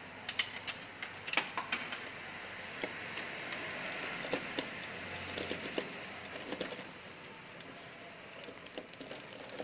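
Claw machine being worked: a quick run of sharp clicks in the first second and a half, then a steady whir as the claw carriage moves for a few seconds before fading, with scattered ticks.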